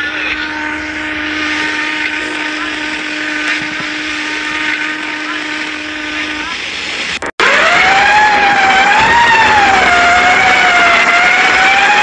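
The SS Europa's horn sounds one long, steady low note over a hiss and stops at about seven seconds with a brief break. Then a louder, higher horn, captioned as the SS Rex's, starts and holds with a slowly wavering pitch.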